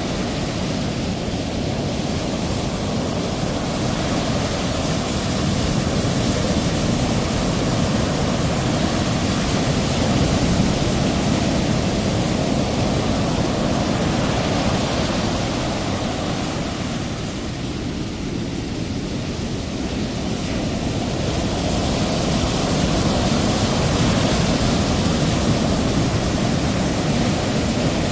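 Steady rushing noise of ocean surf and wind, slowly swelling and easing, with a softer stretch about two-thirds of the way through.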